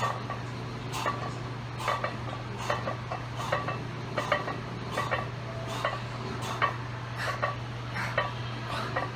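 Iron weight plates clinking against the barbell sleeves on each bench press rep with a 225-pound bar, a sharp metallic clink about every 0.8 seconds in a steady rhythm.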